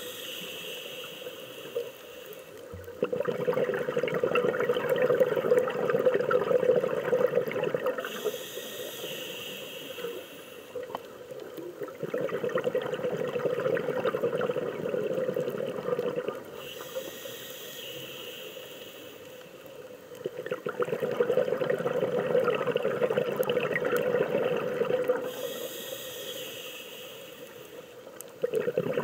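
A scuba diver's breathing through the regulator underwater: a hissing inhale, then a long rush of exhaled bubbles, in a slow cycle of about eight to nine seconds, with three full exhales.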